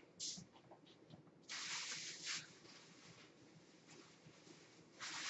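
Faint rustling of booster-pack wrappers being handled, in three short bursts: a brief one at the start, a longer one about a second and a half in, and another near the end.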